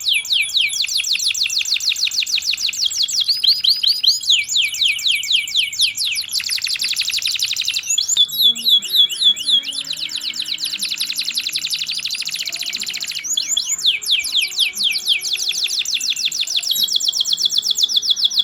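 Domestic canary singing vigorously in long rolling trills: very fast runs of repeated, sharp downward-sweeping notes, each run held for a few seconds before the bird switches to another.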